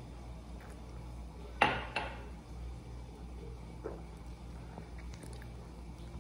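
A person drinking psyllium and water from a glass, with two sudden sharp sounds close together about one and a half seconds in, over a low steady hum.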